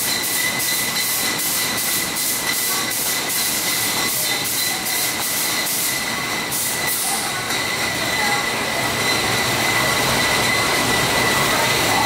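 Machinery running with a steady high whine and a quick regular ticking, about three ticks a second, that stops about seven seconds in.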